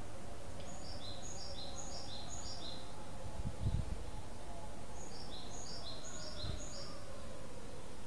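A small songbird singing two runs of a quick, high phrase of three short notes stepping down in pitch, repeated about four times each: the first run about a second in, the second around five seconds in. A brief low rumble comes near the middle.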